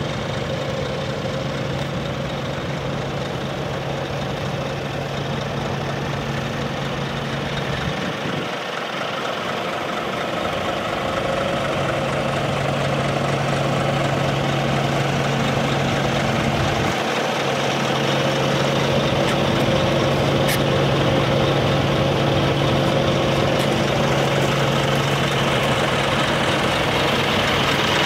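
Scania R400 hook-lift truck's straight-six diesel engine idling steadily, growing somewhat louder about a third of the way through.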